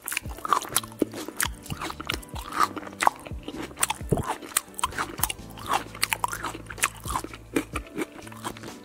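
Close-miked crunching and chewing of raw vegetables, a dense, irregular run of crisp bites and crackles made as ASMR eating sounds.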